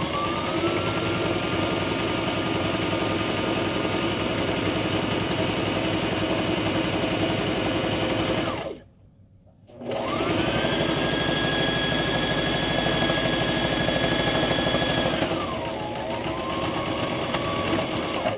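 Brother electric sewing machine top stitching a straight seam. It speeds up and runs steadily, stops for about a second partway through, starts again with a rising whine, then slows to a lower, steady speed near the end.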